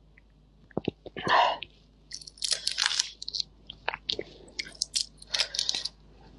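Shell of a large red shrimp crackling and snapping as it is peeled apart by hand close to a clip-on microphone: a run of quick, crisp crackles and clicks starting under a second in.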